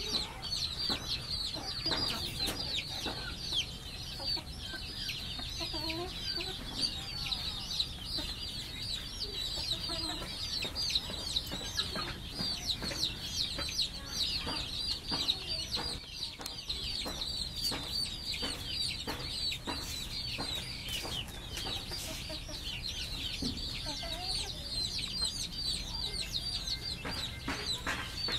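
Chickens clucking now and then over a constant din of rapid, high-pitched chirping, with a few short clicks.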